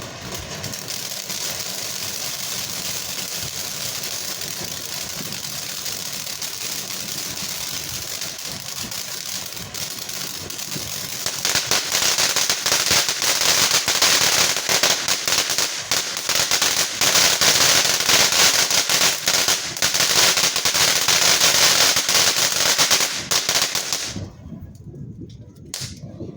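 A lit consumer firework crackling and hissing continuously with rapid pops. It gets louder about halfway through, then stops abruptly near the end.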